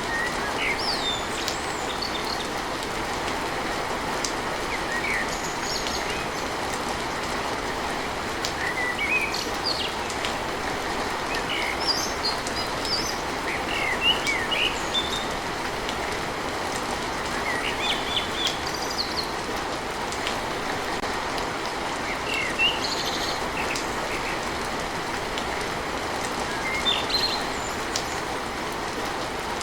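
Steady rain drumming on a tin roof, an even hiss, with short bird chirps every few seconds.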